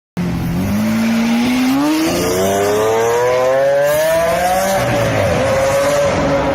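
Sports car engine accelerating hard, its pitch climbing steadily for several seconds, then dipping briefly and holding at high revs.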